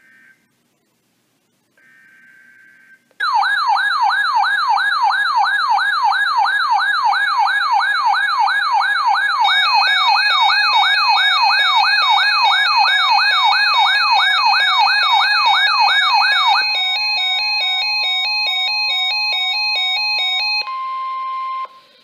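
Weather alert radios receiving a NOAA Weather Radio warning: the last short burst of the SAME data header, then several radios sound their alert alarms at once. There is a fast wailing siren sweeping up and down about three times a second, with a high warble and stepped beeping patterns layered over it. The siren stops about two-thirds of the way through, leaving steady and pulsing beeps, then a single steady tone that cuts off shortly before the end.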